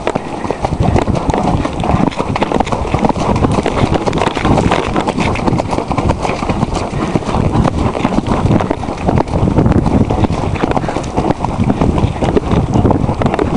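Coloured cob cantering along a wet, muddy track, heard from the saddle: a steady run of quick, heavy hoofbeats.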